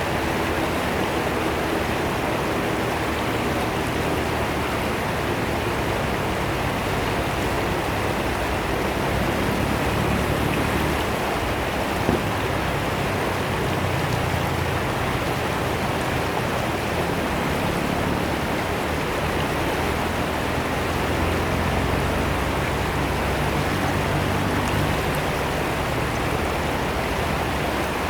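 River water rushing and splashing steadily as it pours swiftly over a weir.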